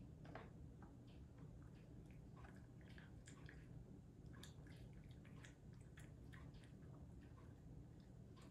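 A cat eating canned turkey: faint, irregular wet chewing clicks, several a second.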